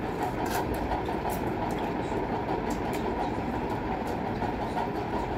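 Steady rushing hum of a running electric fan, with faint clicks of hands and food against steel plates.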